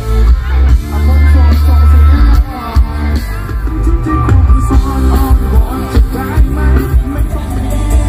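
Live band playing loudly through a concert PA, with heavy bass, drums, electric guitars and a singer's voice over the top.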